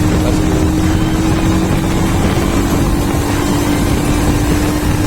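Royal Enfield Himalayan's single-cylinder engine running at steady high revs while the motorcycle is ridden hard, mixed with heavy rushing road and wind noise. Its note steps down slightly about two and a half seconds in.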